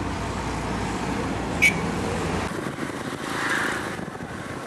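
Steady road and engine rumble of a motor vehicle on the move, with one sharp click about a second and a half in. Partway through, the low rumble drops away and lighter street traffic noise is left.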